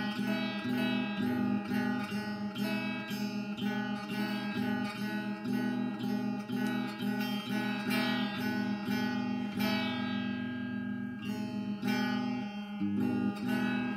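Electric guitar strummed in a steady rhythm of repeated chords, with no singing over it.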